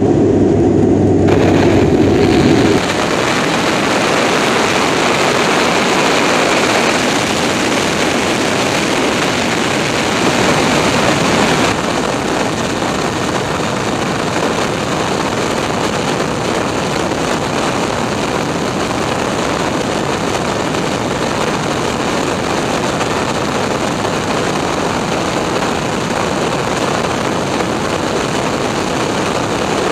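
For the first few seconds, the steady drone of a Dash 8 turboprop rolling on the runway. It then gives way to a loud, steady rush of airflow and jet engine noise, heard from beside the lowered landing gear of a large jet on final approach.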